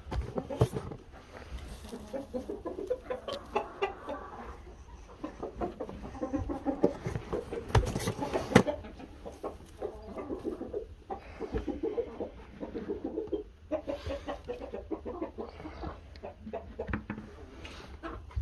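Hens clucking, a steady run of short repeated calls, with a couple of sharp knocks about eight seconds in.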